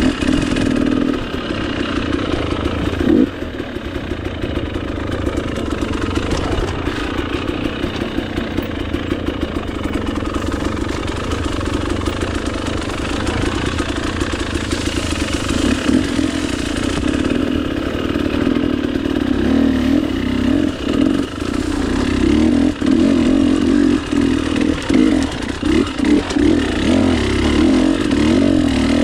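Yamaha YZ250 two-stroke dirt bike engine running under way, its revs rising and falling with the throttle. In the last third the throttle is chopped again and again, giving short dips in the sound.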